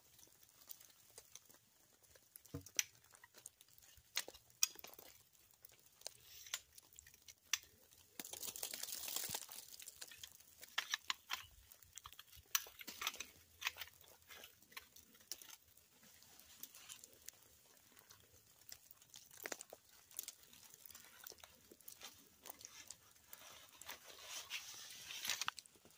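Faint rustling and crinkling of a wet tent's fabric being handled and gathered up, with scattered clicks and knocks; the longest stretch of rustle comes about eight to ten seconds in.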